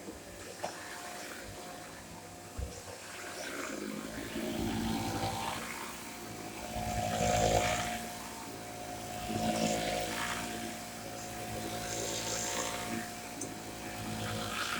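Corded Shark upright vacuum cleaner running, its motor giving a steady whine that gets louder about four seconds in and then swells and eases every two to three seconds as it works.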